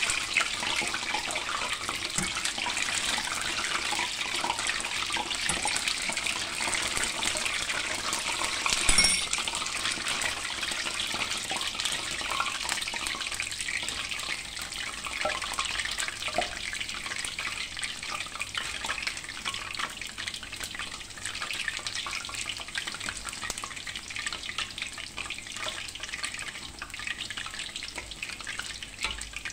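Batch of gemat dough balls deep-frying in hot oil, a steady dense sizzle and crackle that eases a little after the middle. A brief sharp knock about nine seconds in.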